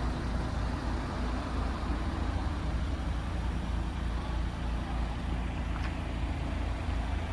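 Toyota SW20 MR2's four-cylinder engine idling steadily through an aftermarket Fujitsubo muffler, an even low hum.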